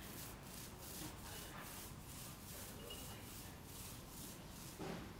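Rhythmic rubbing strokes against a wall panel, about three to four a second, with one louder knock near the end.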